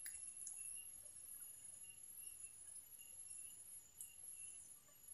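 Faint, steady high-pitched chirring of insects, with a few faint clicks near the start and about four seconds in.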